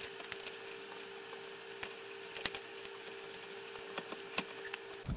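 Small metallic clicks and taps as a bolt and nut are fitted by hand to an industrial sewing machine's foot-pedal linkage rod, over a faint steady hum.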